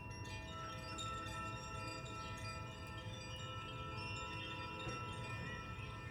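Chimes ringing: many overlapping bell-like tones, with a fresh cluster struck just after the start and more notes sounding here and there as the rest ring on.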